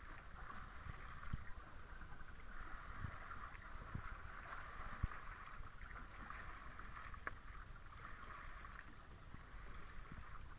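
Steady wind and sea noise on a small fishing boat, a low rumble under a hiss, with a few light knocks on the hull or rod.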